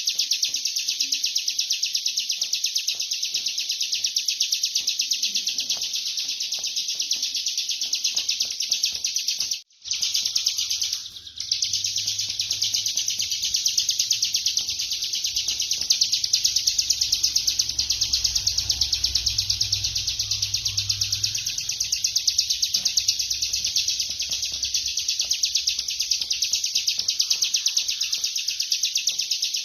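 Bar-winged prinia (ciblek kristal) singing a long, very fast, high drilling trill ('ngebren') that runs almost without a break. It stops briefly about ten seconds in, then falters once more before carrying on.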